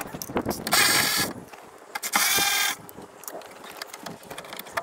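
A 1/4-inch power ratchet run in two short bursts about a second apart, spinning out the two bolts that hold the window glass to the regulator. Light clicks and handling noise follow.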